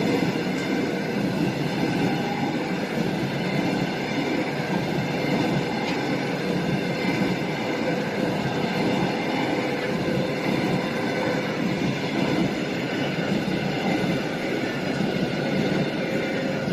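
Train running along the track: a steady, continuous rumble and rail noise with faint steady tones above it.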